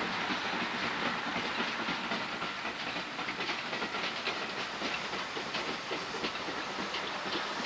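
Steam train headed by NCB No 19, an 0-6-0 steam locomotive, running along the line: a steady hiss with many small ticks and clicks throughout.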